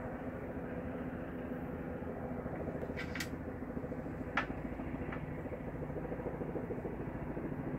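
Helicopters flying around overhead: a steady low rotor drone with a fast pulsing beat. A few light clicks break in between about three and five seconds in.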